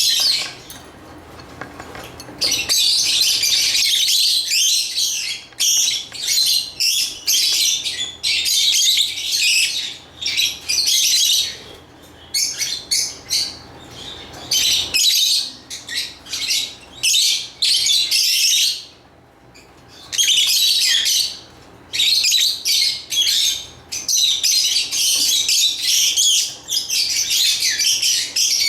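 Lovebirds chirping rapidly and constantly in high-pitched bursts of a few seconds, with brief lulls.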